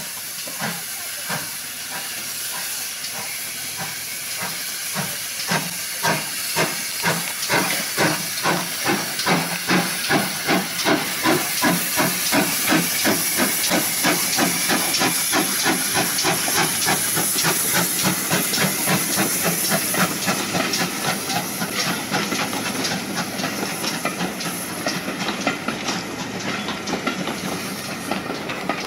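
GWR 4200-class 2-8-0 tank locomotive No. 4270 pulling away with a train of coaches: a steady hiss of steam under its exhaust beats, which start slow and quicken to several a second as it gathers speed. Near the end the beats grow less distinct as the train moves off.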